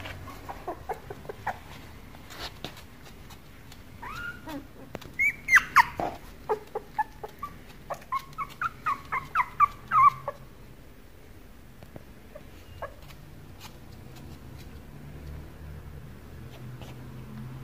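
Shiba Inu puppy whimpering: a run of short, high-pitched squeaks that starts about four seconds in, comes several times a second, and stops about ten seconds in.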